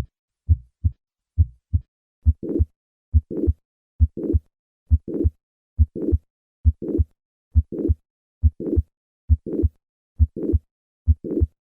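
Heart sounds at about 70 beats a minute. The first few beats are clean first-and-second heart-sound pairs. From about two seconds in, a murmur fills the later part of each systole and runs up into the second heart sound. This is the crescendo mid-to-late systolic murmur of mitral regurgitation due to mitral valve prolapse.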